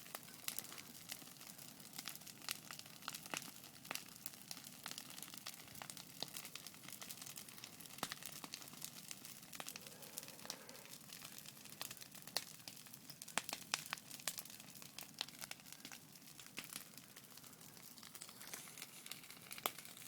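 Bonfire crackling steadily, with a dense run of small snaps and pops and a few louder pops about two thirds of the way through.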